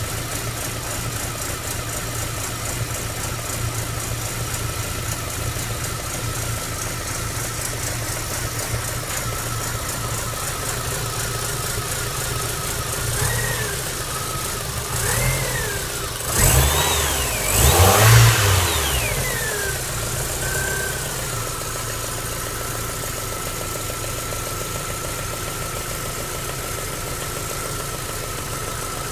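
MG ZR 105's engine running at idle with a thin steady whine over it; about halfway through, the revs rise and fall several times and the sound gets louder, then it settles back to a steady idle. This is the intermittent weird engine sound that the owner reports despite new spark plugs, leads and alternator belt.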